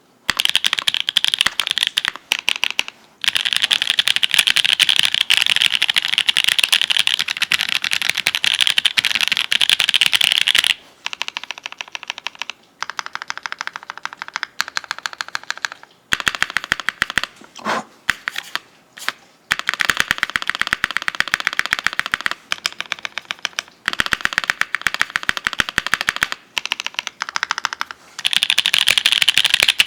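Fast typing on a mechanical keyboard with lubed linear switches (Kailh Red stems in Everglide V2 nylon housings) under GMK keycaps on an FR4 plate. The keystrokes come as a dense clatter in bursts with short pauses, and they turn slower and quieter for a few seconds past the middle.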